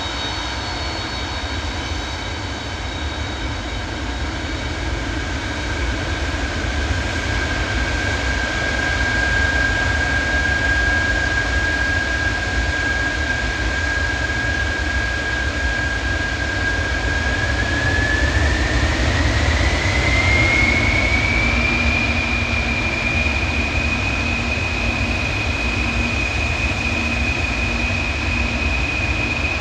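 Jet engines of a large Antonov freighter running loud, with a steady high whine over a deep rumble. About two-thirds of the way through, the whine rises in pitch and then holds higher as the engines spool up toward takeoff power.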